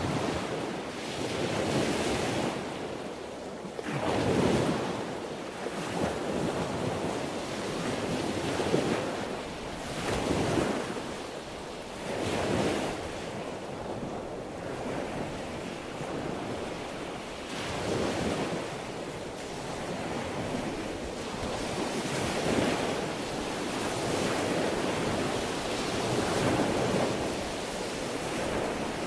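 Sea waves breaking and washing in, the surf swelling and ebbing every few seconds, with wind noise on the microphone.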